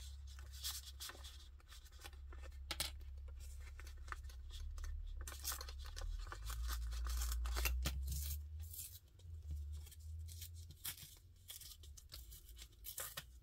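Paper being torn by hand in short, irregular rips and handled, as a piece of map-printed paper is torn away to open a clear spot on a transparency envelope's flap. A low rumble swells in the middle.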